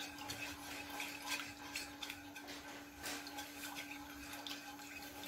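Faint stirring of a thin cornflour mixture in a pan, with scattered light wet ticks of the spoon against the pan, over a steady low hum.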